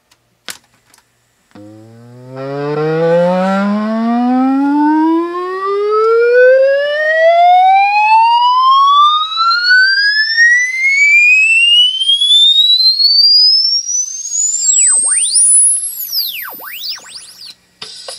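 Lasonic TRC-919 boombox's speakers playing a test-tone sweep from cassette: a loud tone that starts as a low hum about a second and a half in and rises steadily to a very high whistle over some fifteen seconds, carrying a stack of buzzy overtones. A couple of clicks from the deck's keys come just before it.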